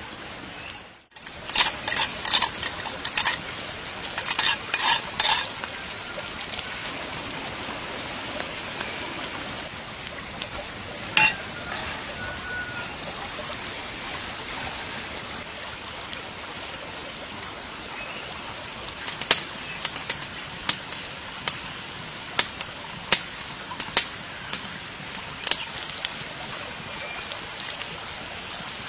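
Cooking oil sizzling on a hot stone slab over a wood fire, with a steady hiss broken by runs of sharp crackles and pops, one run a couple of seconds in and another past the middle.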